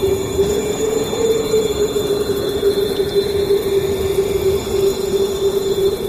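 Paranormal haunting sound effect: a steady, slightly wavering eerie tone held over a rumbling noise bed, with faint thin high tones above it.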